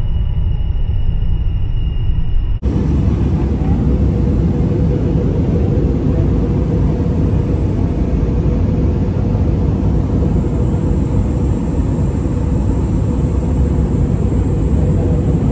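Steady low rumble with a faint constant hum, as heard on board a moving vehicle. It begins with a sudden cut about two and a half seconds in; before that comes a quieter passage with a thin steady high tone.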